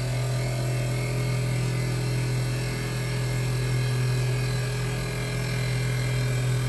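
Rownd desktop CNC lathe running a G-code turning program: a steady motor hum with a thin whine above it.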